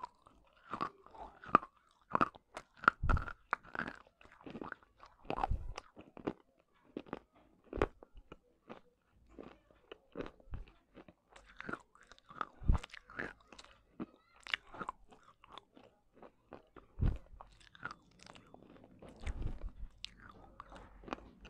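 Close-miked crunching and chewing of broken clay pot pieces: irregular sharp cracks as fragments are bitten and ground between the teeth, some bites much louder than others.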